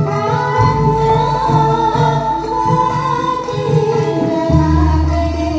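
Music with singing played loud through a large PA sound system, with deep, sustained bass notes.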